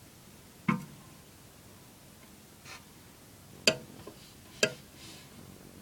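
Sharp knocks on a hard surface, three loud ones and a fainter one between, each ringing briefly.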